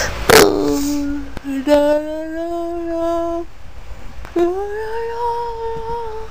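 A woman's sharp hiccup about a third of a second in, trailing into a short held voiced tone, then two long hummed or sung notes, the last one higher and sliding up at its start.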